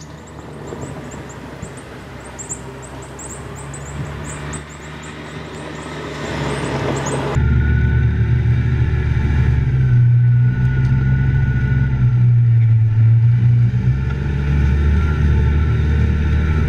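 A side-by-side utility vehicle's engine approaching and growing steadily louder, with a bird chirping repeatedly. About seven seconds in it turns abruptly to the engine heard close from on board: a loud, steady low drone with a faint whine above it as the vehicle drives through swamp water.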